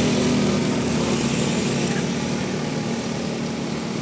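Heavy vehicle's engine running close by with road noise, steady and easing off slightly over a few seconds; no horn.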